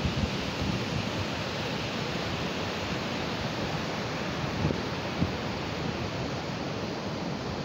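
Steady rushing of a glacial meltwater river, with a couple of brief low bumps of wind on the microphone about halfway through.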